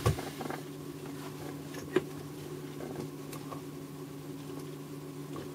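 Steady low electrical hum, with a short knock near the start and a single sharp click about two seconds in, as from handling the wiring of a bench circuit.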